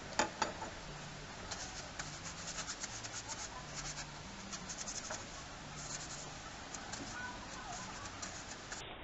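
A cloth rubbing over a copper pipe fitting: faint scratchy ticking in irregular clusters, with two sharper clicks just after the start.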